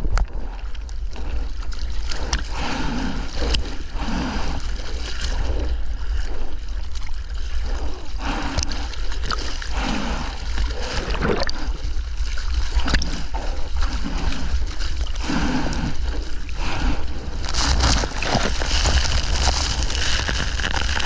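Ocean water splashing and sloshing right at a GoPro held by a surfer in heavy surf, with a low rumble of water on the microphone and irregular splashes every second or two. Near the end a louder rushing wash of whitewater swells up.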